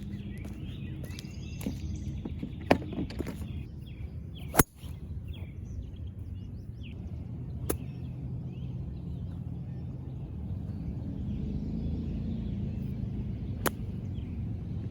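Four sharp single clicks of golf clubs striking balls, a few seconds apart, the loudest about four and a half seconds in, over birdsong and a steady low outdoor background.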